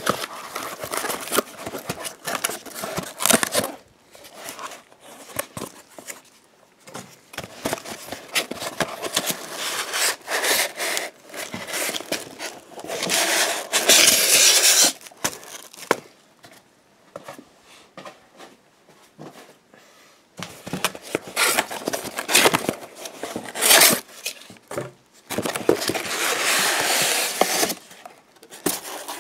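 Packing tape being peeled and ripped off a cardboard box in several loud, harsh pulls, the longest about halfway through, with scraping and rustling of cardboard and foam packing between them.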